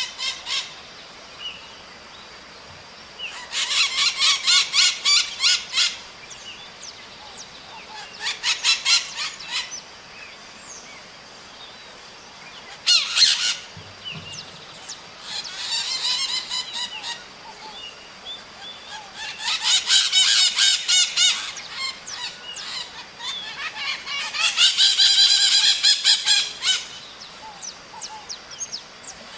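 Maritaca parrot giving harsh, rapidly repeated screeching calls in about six bursts of one to three seconds each, separated by short pauses.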